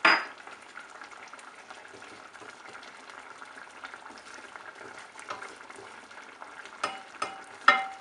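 A pan of curry simmering with a steady soft bubbling hiss while a wooden spatula stirs through it. There is a sharp knock right at the start, and a few short knocks of the spatula against the pan near the end.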